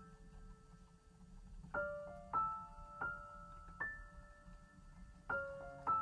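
Background piano music: a held note, then single notes struck one after another from about two seconds in.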